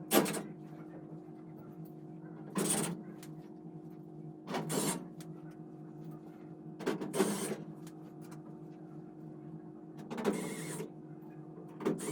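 Screws being driven with a screw gun, one short motor whir about every two to three seconds, about five in all, over a steady machinery hum.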